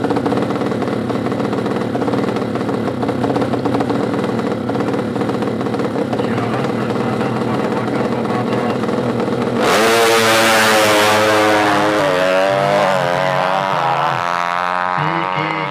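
350cc-class drag racing motorcycle engine running steadily at the start line, then launching at full throttle about ten seconds in. Its pitch climbs and drops back several times as it shifts up through the gears down the strip.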